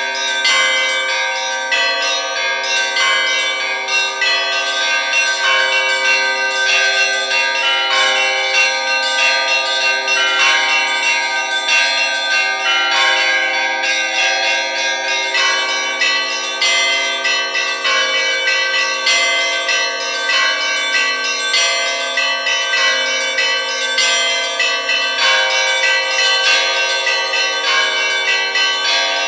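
Russian Orthodox church bells rung together by hand in a continuous peal. The smaller bells are struck in quick succession over the ringing of the larger ones, with no break.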